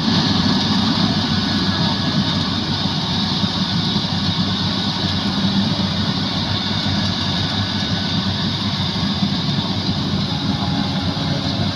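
Yanmar YH850 rice combine harvester running steadily: a continuous engine drone with a hissing band above it, unchanging throughout.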